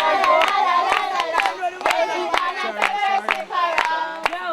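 A group of young voices singing and chanting together over steady, rhythmic hand-clapping.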